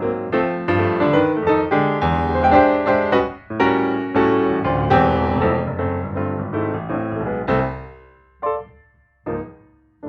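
Background piano music: a quick run of struck chords and notes that thins out after about seven and a half seconds into two single notes before a new chord begins.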